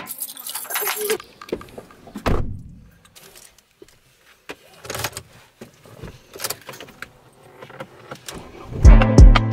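A bunch of keys jangling and clicking in a door lock, then a low thud about two seconds in, followed by scattered light clicks of keys at a car's ignition. Music with a steady beat starts near the end.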